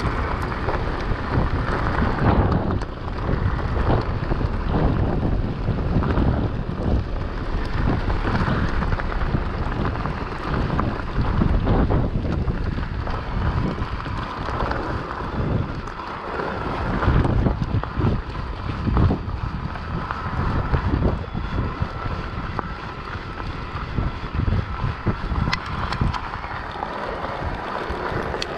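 Wind buffeting the camera microphone as a mountain bike rolls along a gravel track, with the crunch and rattle of the tyres over loose stones.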